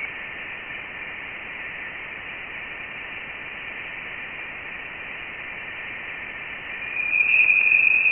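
Voyager 1's plasma-wave detections turned into sound. A steady static-like hiss with a faint constant tone in it is the background hum of the interstellar medium, whose pitch follows the electron density. About seven seconds in, a louder, spooky little whistle swells up: a whistle from the Sun's eruptions.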